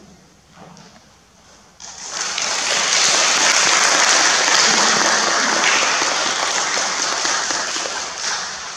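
Audience applauding, starting about two seconds in and tapering off near the end.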